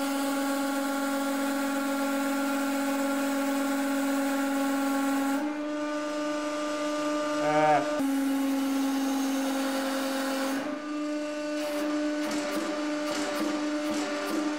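Hydraulic press running with a steady droning hum as it loads a brass rod, with a short squeak about halfway through. In the last few seconds irregular ticks and crackles come as the rod bends under the load.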